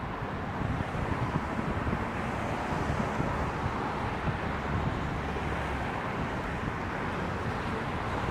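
Wind buffeting the phone's microphone in choppy low rumbles, over a steady hiss of expressway traffic.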